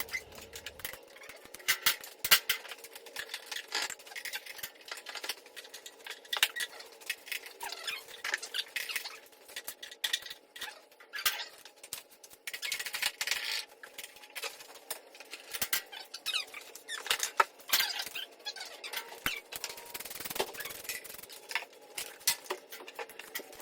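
Fast-forwarded workshop audio: voices sped up into high-pitched, unintelligible chatter, mixed with quick clicks and clatter from work on the bike.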